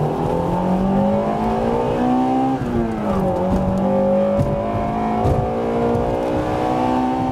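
A car engine accelerating hard, its pitch climbing, dropping sharply once as it shifts up about two and a half seconds in, then climbing again through the next gear.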